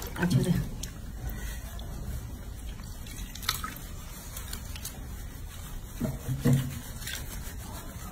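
Bath water splashing and dripping in a bathroom sink as hands wash a baby monkey, with a few small splashes and drips.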